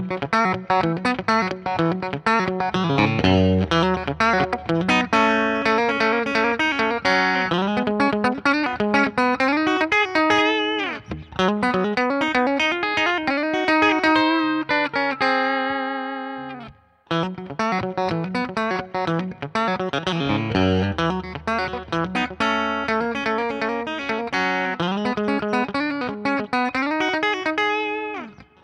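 Electric Telecaster-style guitar played on its bridge pickup, a lead phrase with string bends. It stops abruptly about 17 seconds in and the phrase starts again, now played on a thinline body with an f-hole.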